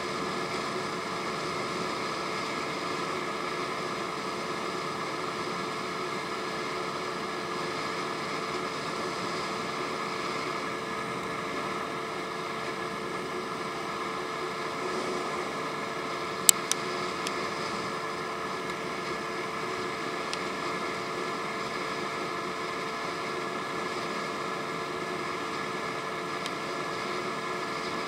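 Honda Ruckus scooter's 49 cc four-stroke single running steadily at cruising speed, under a constant rush of wind and road noise. A sharp click sounds a little past halfway, followed by a fainter one.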